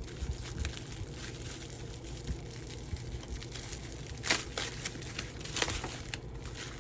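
Plastic packaging crinkling and rustling as parts are unwrapped by hand, with a couple of louder crackles partway through.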